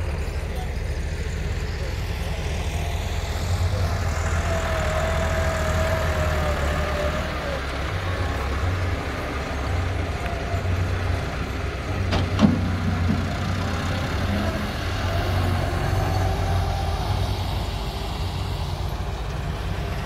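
Diesel engines of a truck and a tractor loader running steadily at a low rumble, with one sharp knock about twelve seconds in.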